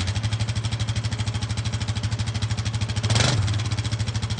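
Yamaha Grizzly 700's single-cylinder four-stroke engine idling through its stock exhaust, with a quick blip of the throttle about three seconds in.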